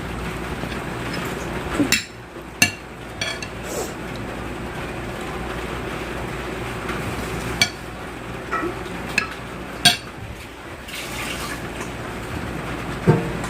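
Eating from a bowl of pork soup: liquid sounds of broth with a spoon knocking against the bowl about five times, over a steady background hum.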